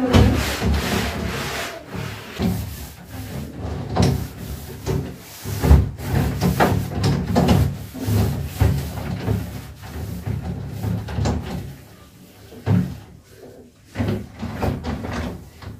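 A cloth is rubbed and wiped over a shower enclosure's frosted panels and frame in irregular strokes. The sliding shower doors knock and rattle in their tracks as they are moved.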